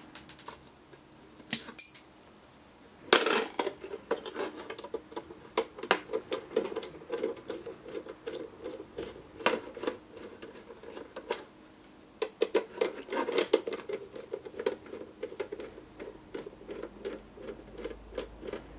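Screws being backed out of the aluminium case of a Holden VT Commodore PCM with a screwdriver: a long run of quick, irregular metallic ticks and scrapes as the screws turn, with a couple of sharp knocks of the metal case being handled in the first few seconds.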